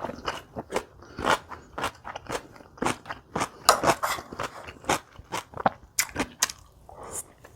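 Close-miked crunchy chewing of kimchi: a dense, irregular run of sharp crunches, several a second.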